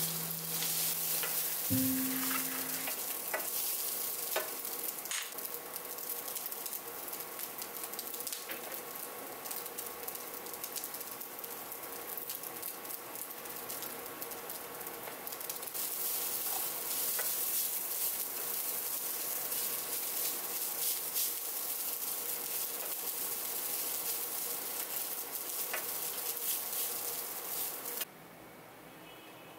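Rice frying and sizzling in a ceramic-coated pan, with scattered scrapes and taps of a wooden spatula stirring it. The sizzle cuts off suddenly near the end.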